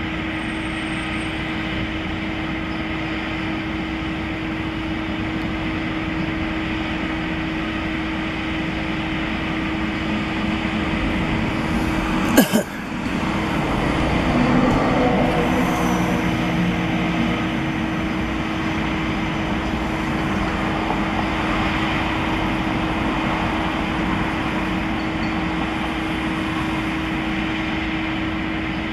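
Steady city street traffic with a constant hum. A single sharp knock comes about twelve seconds in, and just after it a vehicle goes by, louder for a few seconds.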